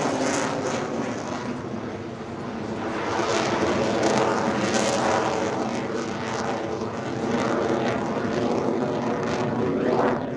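Fighter jet in flight, its jet engine a steady roar with a droning hum running through it, swelling and easing slightly.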